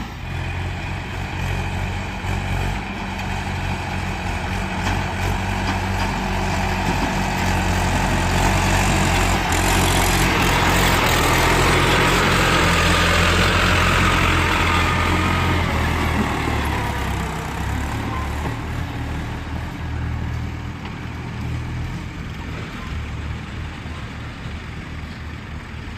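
Heavy diesel engine of earth-moving or tractor machinery running steadily; it grows louder toward the middle, then fades away over the last several seconds.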